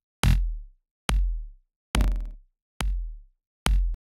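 Layered electronic kick drum loop: a Big Kick synth kick layered with a looped slice of snare and the start of another kick. Five hits land about 0.85 s apart, each a sharp click over a deep boom. Automation on the layers varies each hit, the third with a grainier, rattling middle, and the last hit cuts off short.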